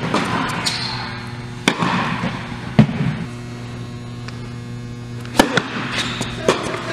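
Tennis rally on an indoor hard court: four sharp pops of the ball off rackets and the court, spaced one to two and a half seconds apart, over a steady electrical hum.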